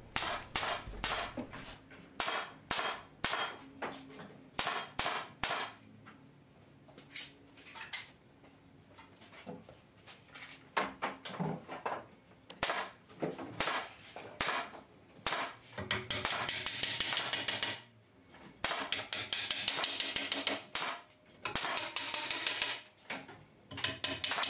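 Hammer knocking hardwood dowels through the glued joints of a timber window sash: sharp blows spaced apart at first, then three runs of quick repeated strikes in the second half.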